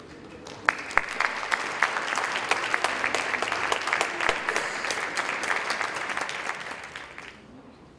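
Audience applauding: a few sharp claps about half a second in, quickly filling out into steady clapping that dies away shortly before the end.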